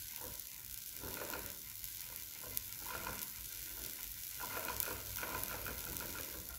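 Hand-cranked Wimshurst electrostatic machine running, its discs turning with a faint steady hiss and scattered small clicks as it charges a Leyden jar.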